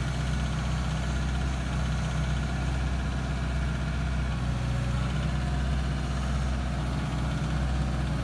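Hyundai 140 crawler excavator's diesel engine idling steadily with an even low hum.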